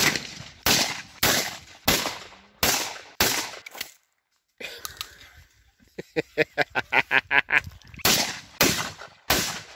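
Shotguns firing in quick succession, one shot about every half to two-thirds of a second. About six shots come in the first four seconds, then the sound drops out suddenly, and three more shots come near the end. In between there is a short, rapid, pitched pulsing sound.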